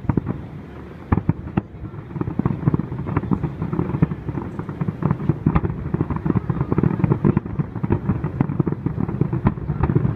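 Aerial firework shells bursting: a few separate bangs at first, then from about two seconds in a rapid, almost unbroken barrage of booms and crackles.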